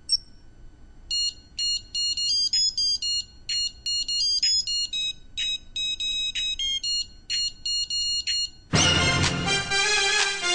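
Digital wristwatch beeping: a single beep as its button is pressed, then a long run of quick multi-tone beeps in a stuttering, beat-like rhythm. Near the end a loud electro track with a heavy beat cuts in.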